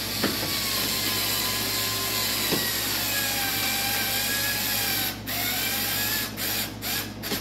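Cordless screw gun driving screws up through a front splitter into a car's bumper. The motor whines steadily, its pitch sagging as it takes the load, stops briefly about five seconds in, then starts and stops several times in quick pulls near the end.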